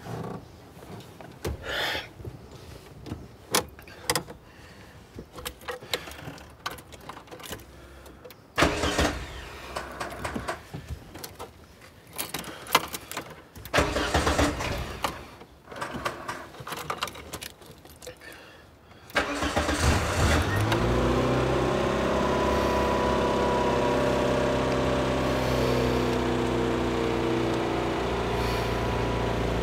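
Scattered clicks and a few short rattling bursts, then about two thirds of the way in a car engine starts, rises briefly and settles into a steady idle.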